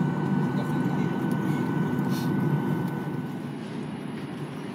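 Boeing 737-800 cabin noise on the ground: a steady low rumble from the engines and air system, with a thin steady whine on top. It drops in level about three seconds in.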